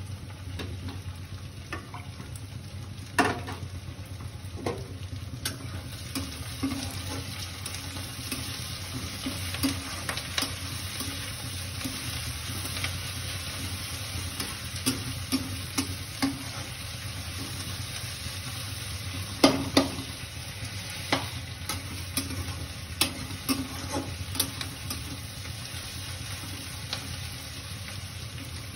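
Water heating toward the boil in an aluminium pot on a stove burner: a fine crackle and fizz of small bubbles forming and collapsing on the hot bottom, with scattered sharp clicks, two of them louder, over a steady low hum. The surface is still calm, not yet at a rolling boil.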